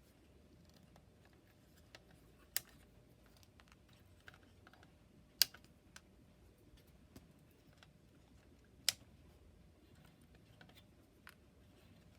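Wire cutters snipping the soldered leads of components on a circuit board: three sharp clicks a few seconds apart, with fainter ticks of handling in between.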